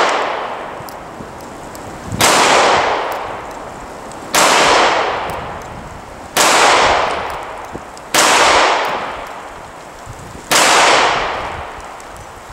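Kimber K6s snub-nose .357 Magnum revolver firing five slow, deliberate double-action shots about two seconds apart. Each shot is followed by a long echo. The tail of the shot before fades out at the start.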